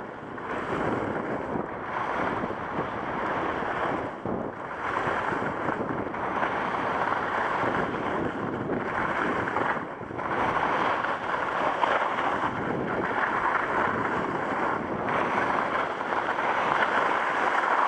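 Skis sliding and scraping over wet, rutted snow, a continuous rushing hiss mixed with wind noise on the microphone, with a few brief lulls.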